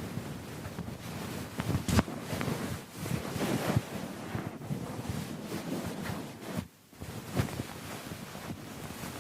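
Keyboard being scrubbed: a steady rubbing, rustling noise with many small clicks and knocks, one sharper knock about two seconds in, breaking off briefly near the end.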